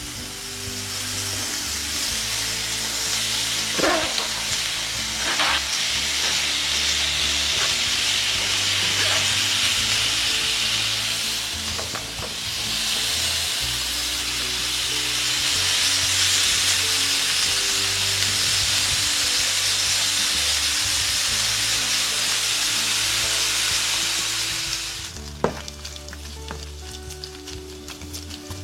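Smoked bacon sizzling as it fries in a preheated pan, a steady hiss that drops away sharply about 25 seconds in. A couple of light clicks come near the start.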